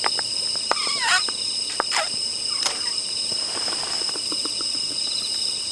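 Crickets chirping in a steady chorus. Over it come the crinkling and crackling of a plastic squeeze-tube ice pop being unrolled and squeezed, in two spells a second or so apart.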